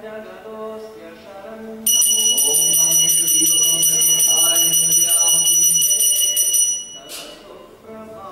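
Puja hand bell rung rapidly and without a break for about five seconds, starting about two seconds in, as the lamp is waved in arati. It rings over singing.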